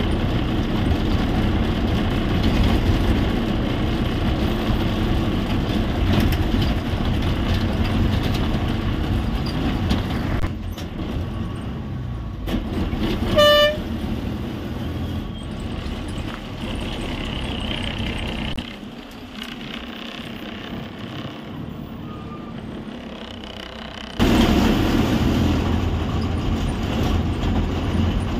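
Steady engine and road noise heard from inside a moving APSRTC express bus, with one short horn toot about halfway through. The running noise drops abruptly twice and comes back loud a few seconds before the end.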